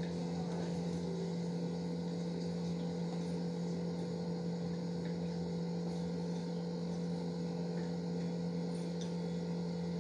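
Steady low hum over a faint hiss, unchanging throughout.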